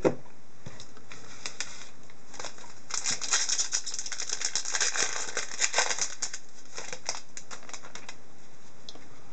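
A trading-card pack's foil wrapper being torn open and crinkled by hand, with a few seconds of crackling rustle in the middle and scattered light clicks and ticks around it.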